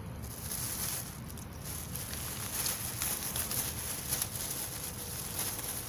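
Plastic bag and paper food wrapper rustling and crinkling as a packed meal is handled and unwrapped, with scattered small clicks over a steady low background rumble.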